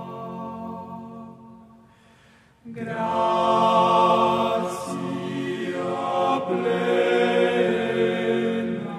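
Soundtrack music: a choir singing a slow chant in long, held notes. The voices die away about two seconds in, and a louder phrase enters a moment later.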